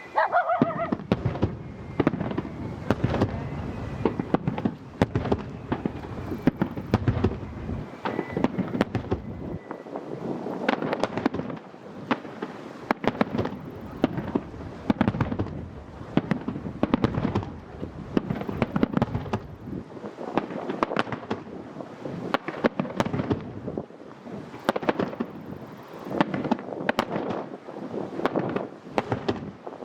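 Aerial fireworks bursting in a dense, continuous barrage: rapid booms and crackling reports overlapping one another, with a brief whistle at the start.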